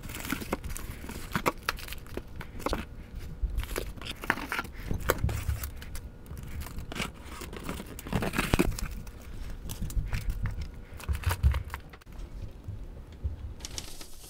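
Paper and cardboard rustling and crinkling as hands rummage through a parcel of boxed model-train items, with irregular light knocks and clicks as boxes are handled and set down on a table.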